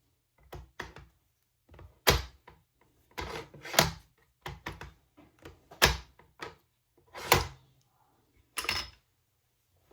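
Bolt-action rifle bolt being worked repeatedly: sliding clicks and sharp metallic clacks as it is opened, drawn back and pushed home, with a loud clack about every second and a half. The bolt is stiff to close, and the owner asks whether headspace, over-crimped brass, or a dirty chamber or extractor is to blame.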